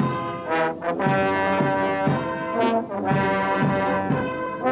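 Youth brass band playing a tune, with cornets, tuba and trombones holding chords that change about once a second.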